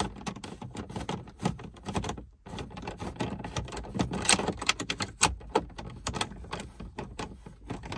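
Hand driver turning a small screw back into the dashboard through a metal phone-mount bracket: irregular sharp clicks and ticks of metal against plastic trim.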